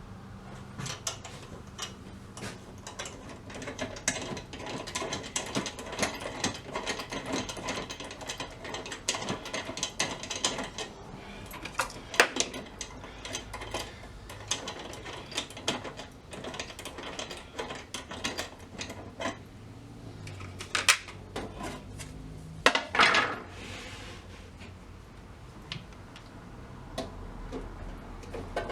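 Metal parts of a vintage jawbreaker vending machine being handled and taken apart: rapid clicking and rattling, like a ratchet or gears, with a few sharper knocks, the loudest about 12, 21 and 23 seconds in.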